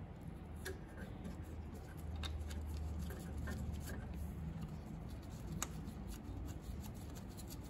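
Faint rubbing and a few light clicks as gloved fingers turn a new belt tensioner's bolt into its threads by hand, over a low steady hum.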